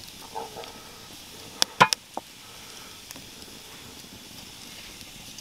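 A few sharp metallic clinks, the loudest cluster about two seconds in, as a cast-iron Dutch oven's wire bail shifts on a coiled-handle pot-hanger hook.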